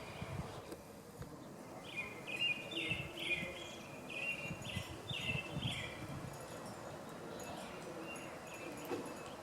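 A small songbird singing a quick run of about eight repeated chirpy phrases, from about two seconds in until about six seconds, over low rumbling background noise.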